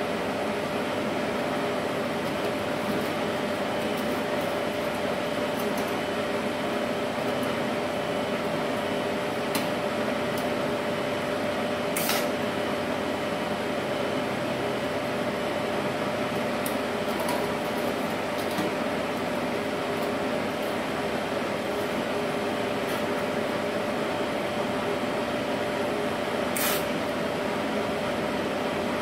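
Steady hum of a running TIG welding inverter's cooling fan and its water cooler, with a steady tone through it. Two sharp clicks cut in, about twelve seconds in and again near the end.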